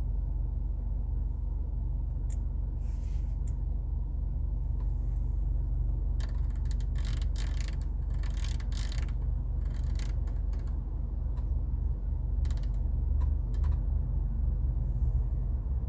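A steady low rumble with scattered clicks and short creaks, thickest in a cluster from about six to nine seconds in.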